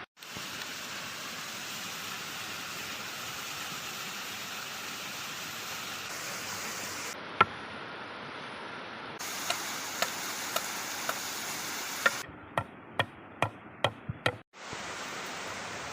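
A series of sharp knocks, like chopping or hammering strokes: one single knock, then about two a second, quickening briefly near the end. They play over a steady rushing noise that changes abruptly a few times.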